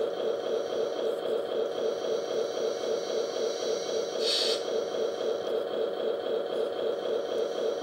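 Hydraulic pump of an RC model truck crane running steadily with an even pulsing drone and a faint high whine as the boom is raised. A short hiss about four seconds in.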